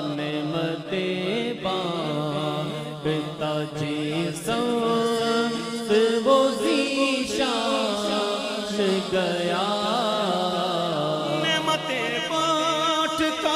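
A man's voice singing a naat, an Urdu devotional poem, unaccompanied, in long held notes that waver and bend in pitch.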